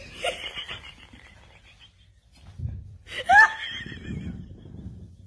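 A person laughing, loudest about three seconds in.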